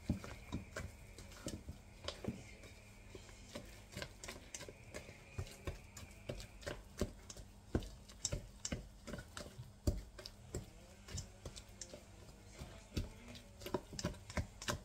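Hand utensil stirring thick semolina batter in a stainless steel mixing bowl: irregular clinks and knocks against the metal, several a second, with soft scraping between them.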